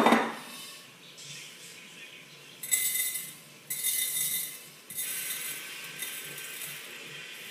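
Toasted, crushed eggshells sliding off a metal skillet and rattling into a large glass jar, in three spells of pouring. A sharp knock at the very start is the loudest moment.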